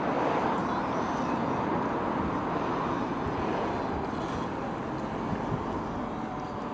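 Motor of a radio-controlled model boat running steadily on the water, growing slowly fainter as the boat moves away.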